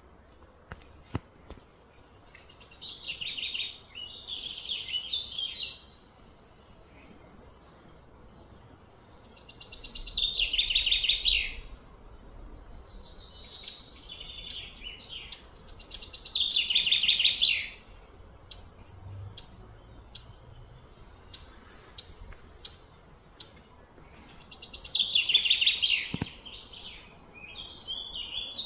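A bird singing: several trilled phrases of about two seconds each, each falling in pitch, with quick sharp chirps between them.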